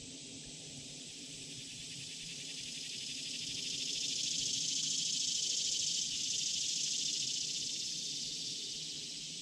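An insect buzz, most likely a cicada, rises over a few seconds to a loud peak midway and then fades away.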